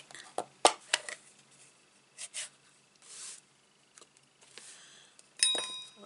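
Stamping supplies handled on a craft desk: a few sharp plastic clicks and taps in the first second, a couple more a second or so later, then soft rustling of paper and card.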